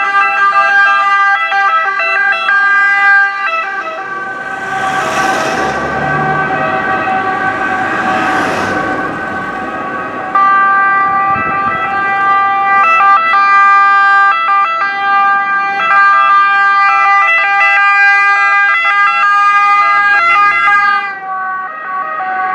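Several ambulance and emergency-car sirens sounding at once, their two-tone wails overlapping in a loud, steady chorus as the vehicles drive by in convoy. A rushing noise swells twice between about 4 and 9 seconds in.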